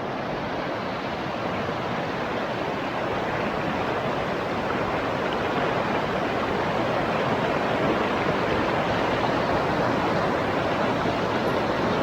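Steady, even rush of fast-flowing river water, like rapids or a small waterfall, growing slightly louder.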